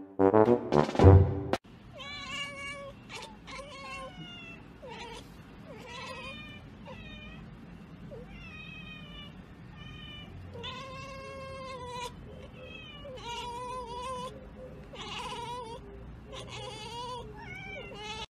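Brass music that cuts off abruptly about a second and a half in, then a cat meowing: a long run of short chirping meows, followed about ten seconds in by several longer, drawn-out meows.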